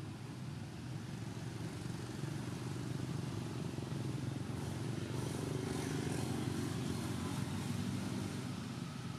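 Low, steady rumble of distant motor traffic, swelling about halfway through and easing off near the end.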